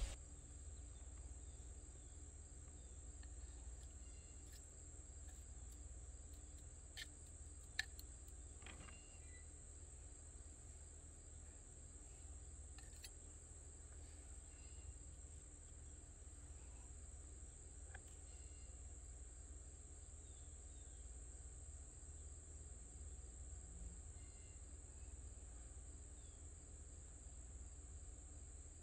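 Faint outdoor ambience: a steady high-pitched insect trill, with a few soft clicks and taps.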